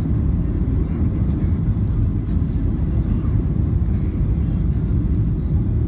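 Steady low rumble of an airliner's engines and rushing air, heard inside the passenger cabin on the landing approach.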